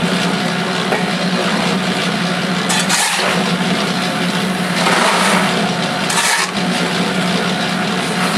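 A Harbor Freight 3½ cu ft electric cement mixer running with a steady hum. Over it, a steel shovel scrapes into a pile of crushed stone and gravel rattles into a plastic bucket: once about three seconds in, again around five seconds, and again just after six seconds.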